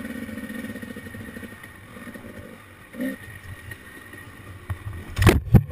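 Off-road vehicle engine running steadily on a rough trail, easing off about halfway through. Several loud, sharp knocks and thumps come near the end.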